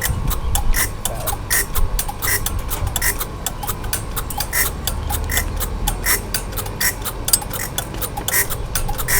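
Band saw blade flash butt welding machine running: rapid, irregular crackling clicks over a low electrical hum, with a short high blip repeating about every three-quarters of a second.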